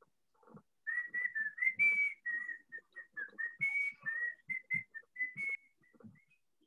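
A person whistling a tune of quick short notes for about five seconds.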